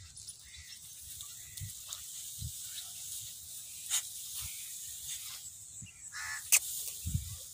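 Rice plants rustling and crackling as a dog pushes through them, over a steady high hiss, with a sharp crackle about four seconds in and a louder one near the end. One short bird call, like the crow cawing just before, comes shortly before the end.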